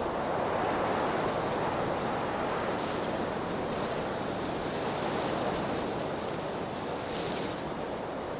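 Wind rushing over an outdoor microphone: a steady noise that swells and eases a little, with a brief hiss about three seconds in and again near the end.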